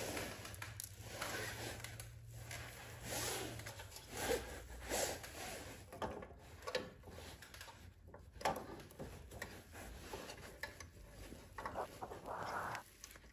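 Hands handling and fitting a new carburetor and its gasket onto a snowblower engine: light rubbing and rustling with scattered small metal clicks and taps.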